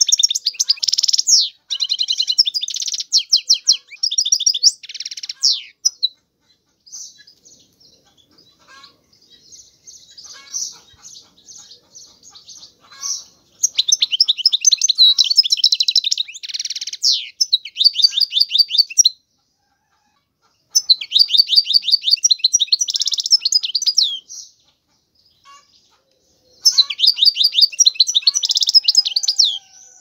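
European goldfinch singing: loud bouts of fast, high twittering song a few seconds long, separated by short pauses and a quieter stretch of scattered soft notes in the first half.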